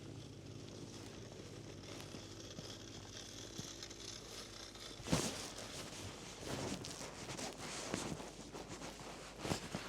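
Footsteps crunching in snow, starting about halfway through and coming irregularly about once a second, over a steady low background.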